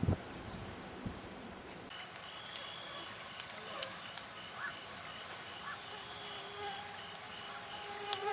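A short thump right at the start, over insects buzzing in a steady high-pitched drone. About two seconds in the sound changes to night crickets chirping in a fast, even pulse that continues.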